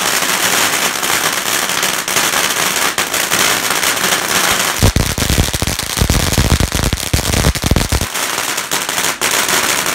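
Fireworks and firecrackers going off in a dense, continuous stream of sharp pops and crackling. A heavy low rumble joins in from about five seconds in and stops about three seconds later.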